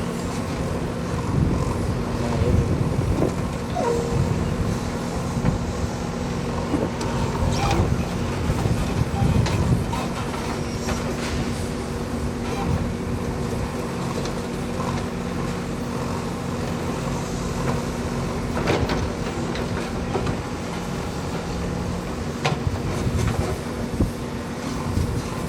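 Diesel engine of a Bull backhoe loader running steadily, with several sharp knocks as the machine works.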